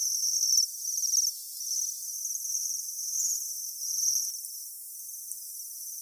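Japanese waxwing calling: a string of high, thin trilled calls, one after another.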